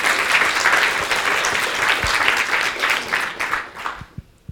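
Audience applauding, a dense run of clapping that dies away about four seconds in.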